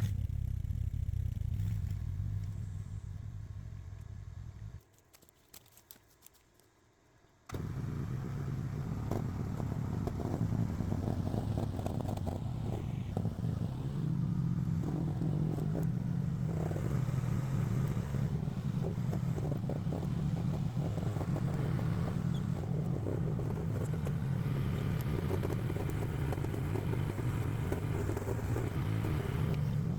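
Mini excavator's small engine running steadily. It drops away suddenly about five seconds in, leaving a couple of seconds of quiet with a few faint knocks, then returns at working speed, with clatter and scraping from the machine.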